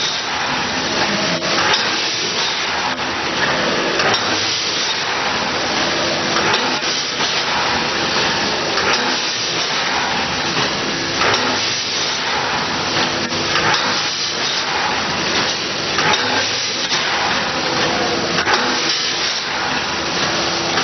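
Vertical form-fill-seal bagging machine running: a steady hissing, clattering machine noise with a regular knock about once a second as it cycles.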